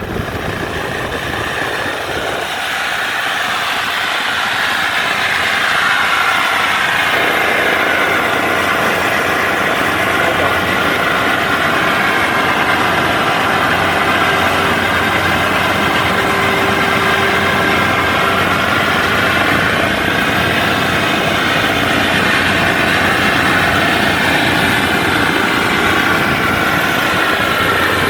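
Kubota WD102PRO rice combine harvester's diesel engine and tracks running steadily at road travel speed. The sound is mixed with the engine of the vehicle following it and grows louder over the first few seconds before holding level.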